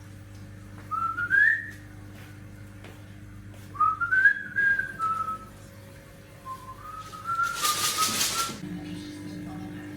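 Whistling in three short phrases, each a slurred, wavering tune that glides upward, with a brief burst of hiss about eight seconds in.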